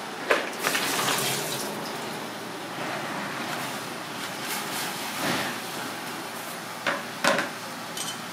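Goose barnacles rattling as they are poured into a plastic colander, then tipped into a pot of boiling water, over the steady bubbling of the water; two sharp knocks near the end.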